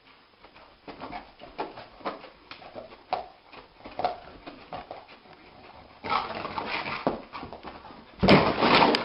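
A dog whimpering in a series of short whines, about two a second, growing busier after about six seconds, with a louder burst of noise near the end.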